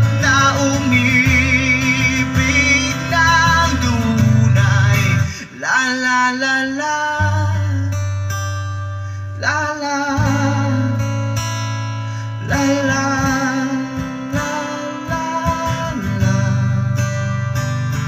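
A Tagalog pop song played loud through a stack of outdoor speaker cabinets, in a passage without lyrics: guitar and melody over a heavy steady bass line.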